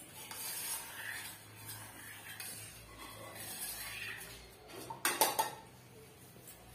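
A steel spoon stirring and scraping inside a small stainless steel saucepan of whey, then a few sharp metal clinks about five seconds in as the pan and spoon are set down.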